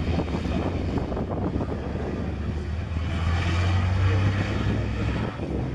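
Diesel engines of racing trucks running hard as they drive past in a line, a steady low engine drone that swells a few seconds in.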